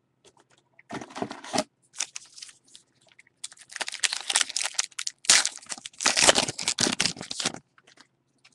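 A 2013 Topps Gypsy Queen baseball card pack wrapper being torn open and crinkled by hand. There are a couple of short crinkles, then a longer stretch of crackling from about three and a half seconds in until shortly before the end.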